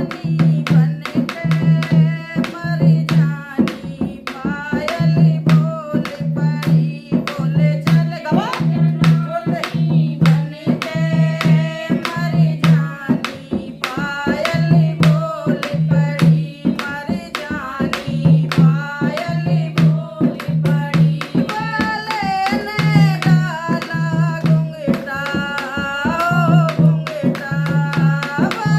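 Hindi devotional song (bhajan): a voice singing over a steady drum beat and percussion.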